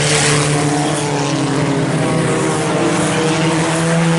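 A pack of IMCA Sport Compact race cars running at racing speed, their four-cylinder engines making several steady, overlapping engine drones.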